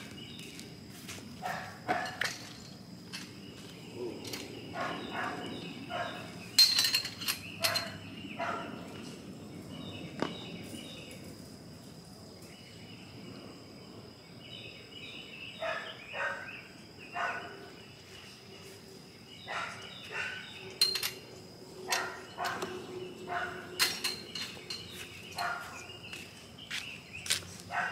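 Outdoor yard sound with several bursts of quick, high, stuttering animal calls, a run of short notes at a time, and a few sharp clicks.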